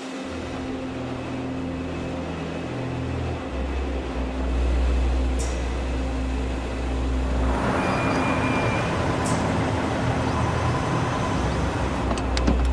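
A car drives up and pulls in, its engine and tyre noise swelling about halfway through over a low steady drone. A few sharp clicks come near the end.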